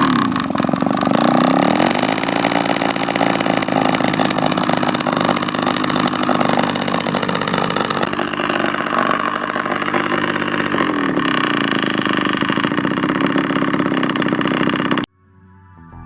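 Homemade miniature two-stroke engine built from a refrigerator compressor, running with an expansion-chamber exhaust made from rubber radiator hose; its speed dips and rises a couple of times. The sound cuts off suddenly about a second before the end.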